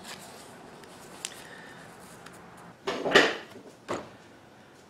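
Handling of a plastic drill bit index case and metal drill bits on a wooden workbench: a light click about a second in, a loud clatter around three seconds in, and a sharper knock just before four seconds.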